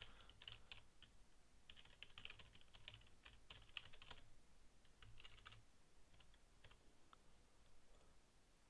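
Faint computer keyboard typing in quick runs of keystrokes for about four seconds, then a short burst around five seconds in, then a few scattered clicks.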